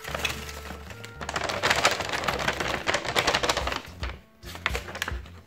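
Paper rustling and crackling as a folded paper packet is opened and small paper sachets are spilled out and handled, densest for a couple of seconds in the middle, then a few light taps. Background music plays underneath.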